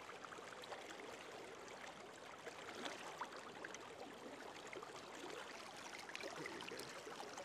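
Faint, steady rush and ripple of flowing stream water, with a few small ticks of water.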